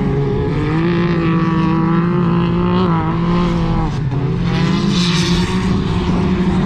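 Side-by-side UTV engine running hard at high revs, easing off briefly about four seconds in and then pulling again.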